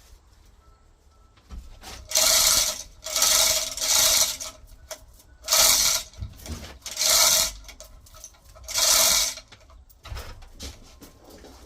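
Manual chain hoist being hauled in repeated pulls, its chain and ratchet rattling in six short bursts.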